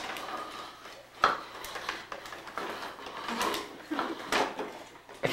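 Plastic toy baby walker rolling and bumping on a wooden parquet floor: scattered clicks and rattles from its wheels and frame, with one sharp knock about a second in as it hits the wall.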